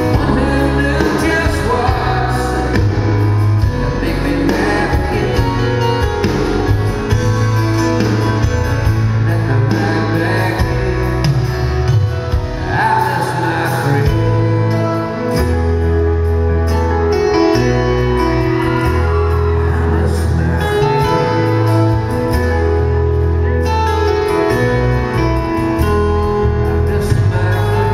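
Live country band playing a slow ballad through a PA system, with a singer's voice over it.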